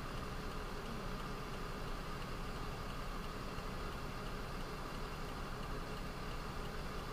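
Steady hum of an idling motor vehicle engine, unchanging throughout.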